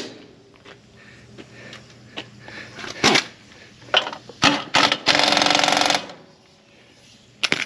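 Scattered clanks and clicks of metal tools on mower parts while blades and knives are being changed, with a power tool running for about a second around two-thirds of the way through.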